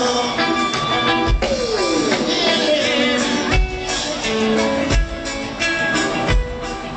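Live band playing amplified music through a festival PA, heard from within the crowd: singing over guitar, with a deep thump every second or so.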